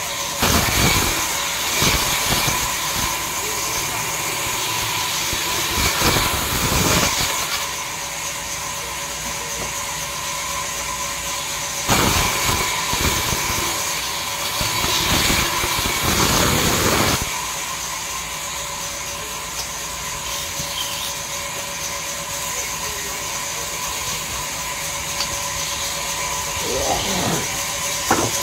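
Large sawmill band saw running with a steady whine, louder for a few seconds at a time, several times, as its blade rips through jackfruit wood planks.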